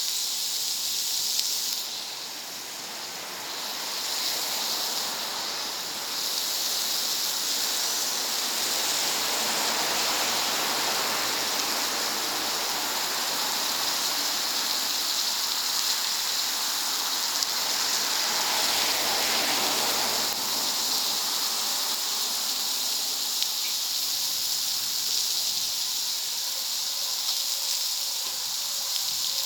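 Food sizzling on a hot plancha over a wood fire: a steady hiss with a few small crackles.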